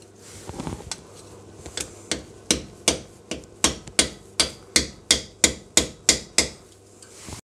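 A hammer tapping a flat-blade screwdriver against a seized plastic ABS wheel speed sensor to drive it out of its cast bore in the front hub. About fourteen sharp taps come at roughly three a second, steadier from about two seconds in, and the sound cuts off abruptly just before the end.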